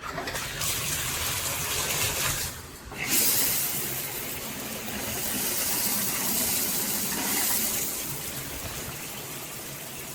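Water spraying from a BOONA tandem dual shower head in a running shower, a dense hissing splash. The spray sound drops out briefly between two and three seconds in, then comes back.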